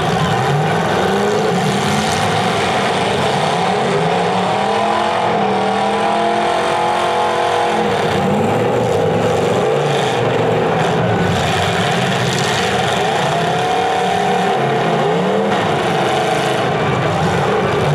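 Several demolition derby cars' engines revving at once, their pitches climbing and falling as the drivers accelerate, back up and ram one another.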